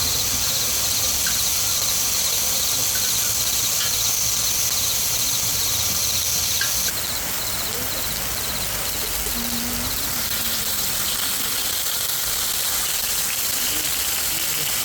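Insects chirping in a fast, even, pulsing trill over a steady high hiss; the hiss changes abruptly about seven seconds in.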